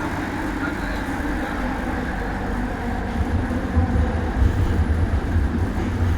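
Light rail train running between stations: a steady rumble of wheels on track, heard from inside the carriage, growing louder about three seconds in.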